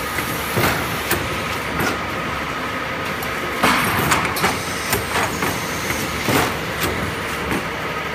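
Pneumatic paper-cup placing and cake-batter depositing machine running: a steady mechanical hum with irregular sharp clacks from its air-driven mechanisms, several to the second.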